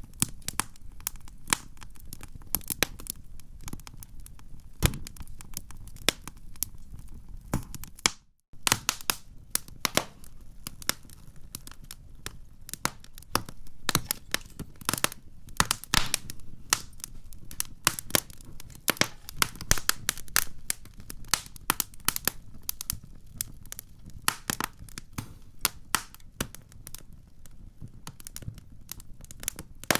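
Campfire crackling: frequent irregular snaps and pops over a low steady rumble of burning. The sound drops out briefly just after eight seconds in.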